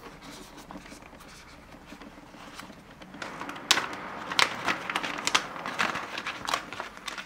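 Clear plastic bag crinkling and crackling as hands handle and open it, a dense run of sharp crackles that grows louder from about three seconds in. Before that, quieter rustling as a cardboard box is handled.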